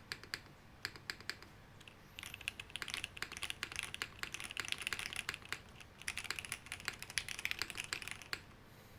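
Typing on a sandwich-mount mechanical keyboard with Cherry HB switches, Cherry stabilizers and GMK keycaps: a few separate keystrokes, then fast continuous typing from about two seconds in that stops shortly before the end.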